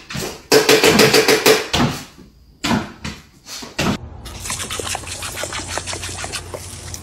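A run of loud knocks and clatter, then, from about four seconds in, the steady hiss of a garden hose spray nozzle jetting water.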